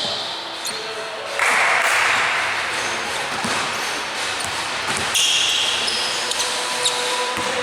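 Basketball game play in a gym: a ball bouncing and sneakers squeaking on the court. A sudden rush of noise comes in about a second and a half in.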